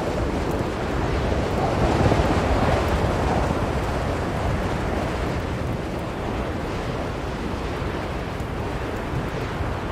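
Strong blizzard wind blowing, a steady rushing noise heavy in the low end that swells about two seconds in and then settles.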